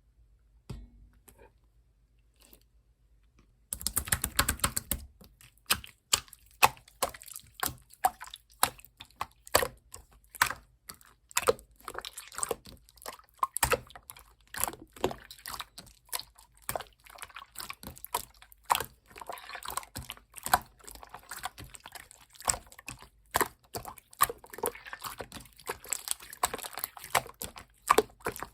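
Slime being squeezed and worked by hand, making rapid wet clicks and small pops. It starts about four seconds in and keeps on in an uneven, dense patter.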